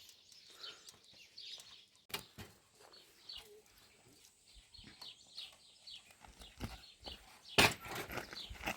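Birds chirping over and over in short, high, falling notes. There is a knock about two seconds in and a loud sharp clatter near the end.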